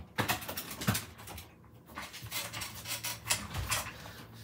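A run of short, irregular rustles and clicks, loudest near the start and about a second in, over a faint low hum.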